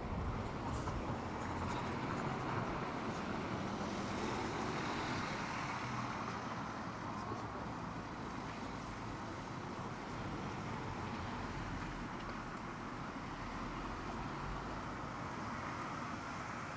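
Road traffic: a steady wash of car tyre and engine noise, swelling as vehicles pass.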